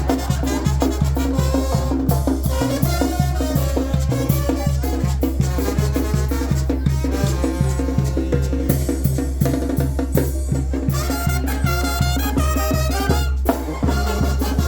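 Oaxacan brass band (banda de viento) playing a lively tune, with brass carrying the melody over a steady beat of low bass notes and drums.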